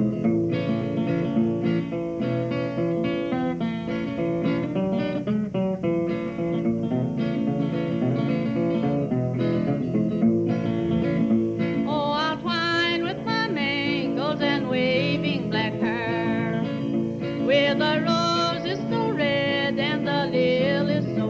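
Acoustic guitar music, plucked and strummed, with a singing voice coming in about halfway through.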